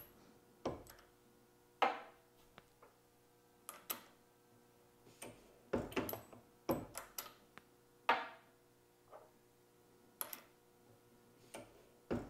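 Single-stage reloading press cycling as a new brass case is run up onto the expanding mandrel and back out: a string of light metallic clicks and knocks, with a few short sliding scrapes.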